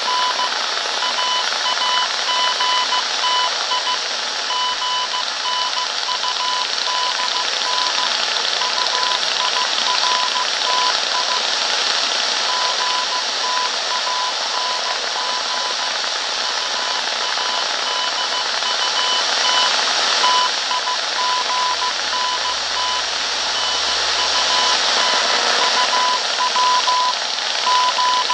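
Morse code signal received on a shortwave radio: a steady beep keyed on and off in dots and dashes over loud static hiss.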